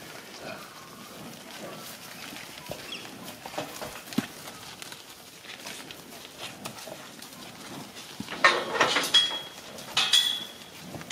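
Angus cows and calves moving about in a steel-panel cattle yard: quiet shuffling at first, then loud clattering about eight seconds in and again about two seconds later, each time with a short metallic ring.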